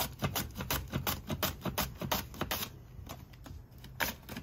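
Onion being pushed back and forth over a mandoline slicer's blade, shaving it into thin slices: a quick run of crisp rasping strokes, about four a second, then a short pause, and the strokes start again near the end.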